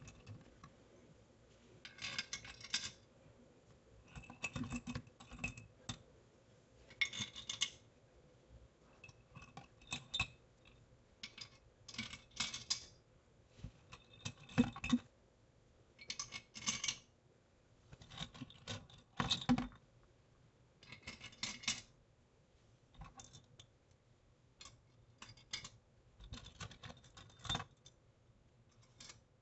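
Metal bolts clinking and clicking as they are handled and set into the joined halves of an engine case, in short irregular bursts.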